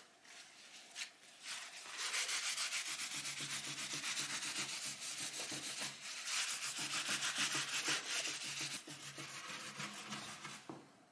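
Cloth and a round wax brush rubbing black wax over a chalk-painted wooden tabletop: a steady scratchy rubbing, starting about two seconds in.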